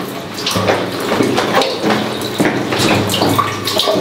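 A stream of liquid splashing unevenly into a urinal: a man urinating.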